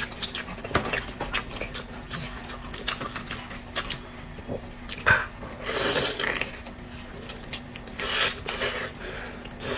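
Close-up eating sounds: chewing with many short wet clicks and scraping, louder in two short stretches about six and eight seconds in.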